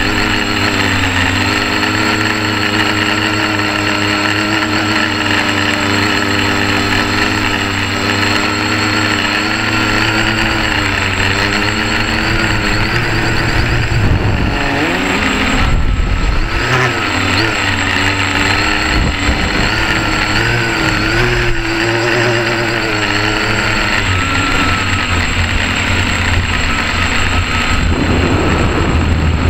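Quadcopter motors and propellers running, heard from a camera on the craft: a steady multi-pitched drone. Through the middle the pitches waver up and down as the throttle changes during banking, then settle again near the end.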